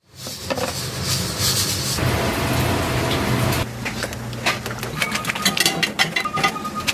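Steady rush and hum of a ramen noodle boiler at work. From about four seconds in comes a run of quick metal clinks and taps as the steel mesh noodle strainer baskets are handled in the cooker.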